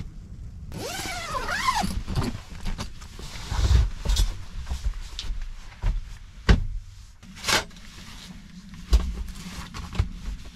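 Handling noises of gear being moved about in a small camper: a zipper-like rasp about a second in, then scattered knocks and thumps over a low rumble.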